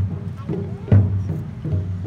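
Japanese taiko drums played by an ensemble: deep strikes about once a second, one just at the start and one about a second in, with lighter beats between. Voices are faintly heard underneath.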